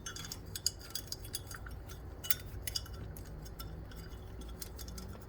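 Scattered light clicks and clinks of small parts being handled while a rubber grommet is worked onto the display panel mount.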